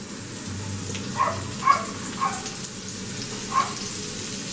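Chopped white parts of spring onion sizzling in hot oil in a pan: a steady hiss with a few short pops.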